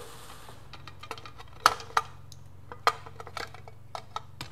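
Sharp metal clicks and taps from a vintage SWF wiper motor and its linkage being handled and taken apart on a workbench, the loudest knocks a couple of seconds in. A faint steady low hum underneath.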